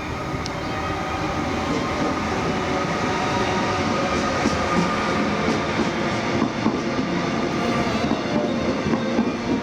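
Passenger train running on the rails, a loud, dense rumble with clattering wheel clicks that grows slowly louder.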